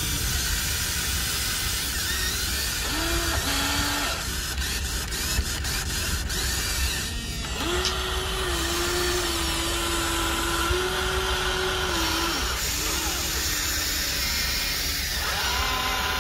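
Electric motors and gearboxes of a Huina 1593 remote-control excavator whining in short spells as the boom, arm and bucket move, with a longer held whine in the middle and a few clicks before it, over a steady low rumble.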